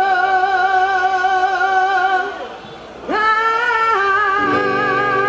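Music: a voice singing long held notes with vibrato, with a short break about two seconds in and a quick slide up into the next note. Lower accompanying notes join near the end.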